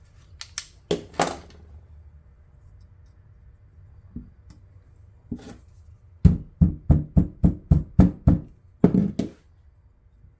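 Light taps from a small hammer on an Allen wrench seated in a stuck screw. A few clicks come near the start, then a quick even run of about eight knocks at roughly three a second, and one more knock shortly after.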